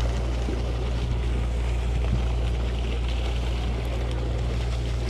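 Sportfishing boat's engine or machinery giving a steady low drone, with an even rush of wind and sea noise on deck.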